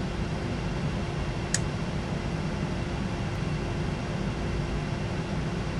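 Steady flight-deck background noise of a Boeing 737 NG cockpit: an even low hum and hiss with a faint steady tone under it, and one short click about one and a half seconds in.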